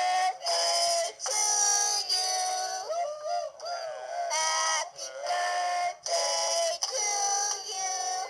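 High-pitched singing, in short phrases of held notes with brief breaks and a few swooping pitches.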